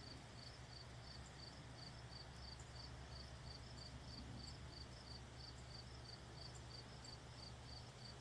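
Faint cricket chirping, a high chirp repeated about three times a second, over a steady low hum.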